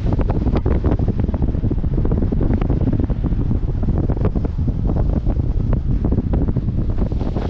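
Wind buffeting a microphone held at the window of a moving car: a loud, steady low rumble with frequent small crackles.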